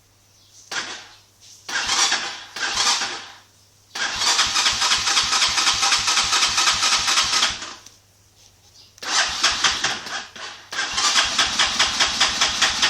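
Dirt bike engine being cranked by its starter in repeated tries: a few short bursts, then longer runs of fast, even pulsing of several seconds each with pauses between, without the engine catching.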